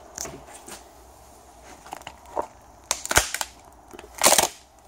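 Sharp cracks and snaps as corrugated plastic (Corex) strips, glue-gunned to the boat plug, are pried and broken away by hand, with a loud cluster about three seconds in and the loudest just past four seconds.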